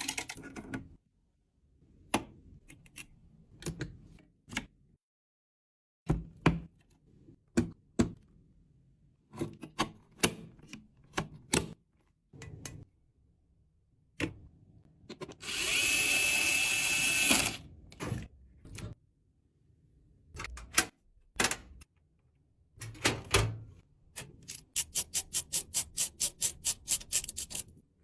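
Clicks and knocks of computer parts being handled and snapped into place, with a small electric screwdriver whirring for about two seconds midway. Near the end comes a quick even run of clicks, about four a second.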